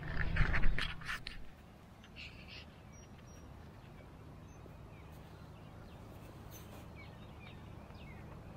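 Scraping and knocking of a hand against the action camera for the first second and a half, then quiet outdoor morning ambience with a few faint, scattered bird chirps.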